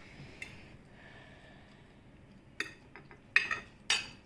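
Plates and cutlery clinking while food is served, with three sharp clinks in the second half, the last two loudest.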